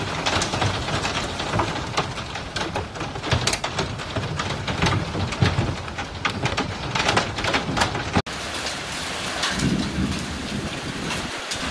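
Hail and heavy rain pelting a window pane, with many sharp hits of hailstones striking the glass. After a cut about eight seconds in, a steadier hiss of hail and rain falling on a lawn.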